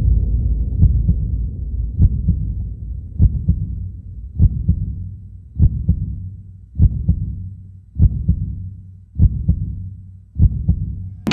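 Slow, deep heartbeat sound effect, a heavy thud about every 1.2 seconds, over a low rumble that fades away during the first few seconds: a suspense cue in a film soundtrack.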